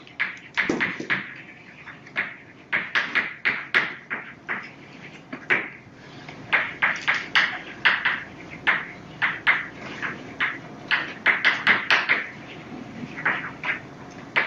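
Chalk writing on a blackboard: a fast, irregular run of short taps and scratches as each letter is stroked, coming in clusters with brief pauses between words.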